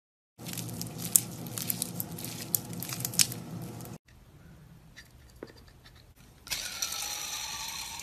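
Blue slime squeezed and worked between two hands, a dense run of wet crackles and pops that stops abruptly. Near the end, a fidget spinner is spun and whirs for about a second and a half, its pitch falling.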